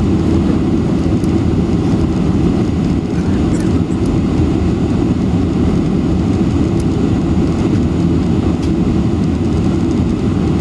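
Steady cabin roar inside a Boeing 747-400 on approach with its flaps extended: engine and airflow noise, deep and even, with no change in level.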